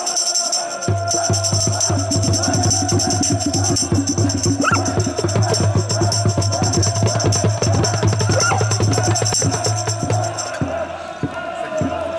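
Fast, rhythmic drumming with jingling percussion, played as music. It stops about ten and a half seconds in.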